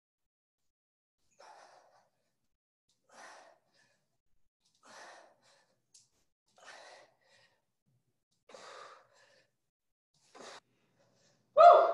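Heavy breaths of a person doing dumbbell thrusters, one every couple of seconds in time with the reps. A much louder burst of sound comes right at the end.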